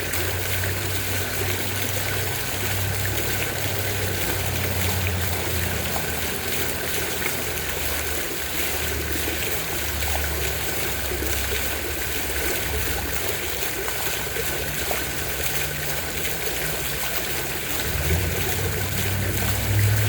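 Steady rush and splash of water falling in a park fountain.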